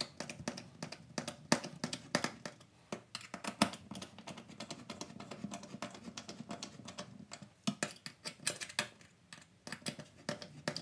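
Hand screwdriver turning screws into a dishwasher's new plastic sump through the steel tub: a run of irregular small clicks and scrapes.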